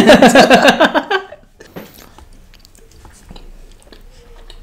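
A man laughing loudly for about the first second, then quieter eating noises: soft chewing and small clicks of a wooden fork in a paper cup.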